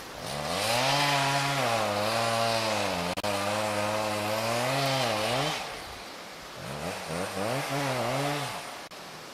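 Chainsaw cutting into a tree being felled, at full throttle for about five seconds. It eases off, then revs and cuts again for about two seconds before stopping near the end.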